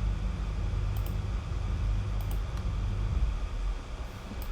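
Steady low background hum of the kind a fan or air conditioner makes, with a few faint clicks over it.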